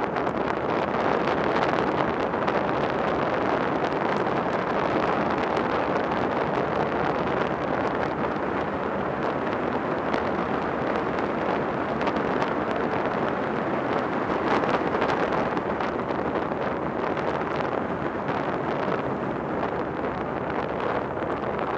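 Velomobile rolling along an asphalt road: steady tyre and road noise with wind rushing over the microphone.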